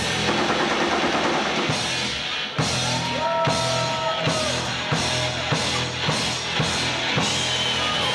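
Rock band playing an instrumental passage with no vocals, the drum kit to the fore. A sharp drum hit comes a little over two seconds in, then a steady beat of about two hits a second, with a few held notes over it.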